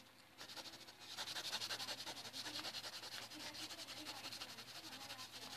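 Coconut husk fibre rubbed over pastel on paper in quick, repeated scratchy strokes, blending the colour; it grows louder about a second in.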